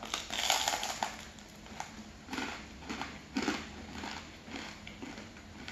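Close-up bite into crusty bakery bread: a long crackling crunch, then crunchy chewing with a crisp crunch every half second or so, thinning out toward the end.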